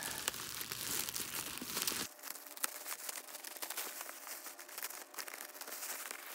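Clear plastic packaging film crinkling and crackling as it is cut with scissors and pulled off a doll box. It is loudest in the first two seconds, then goes on lighter.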